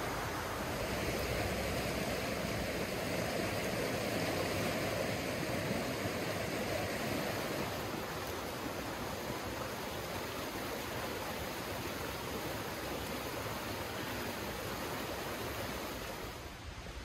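A strong stream rushing steadily, dropping a little just before the end.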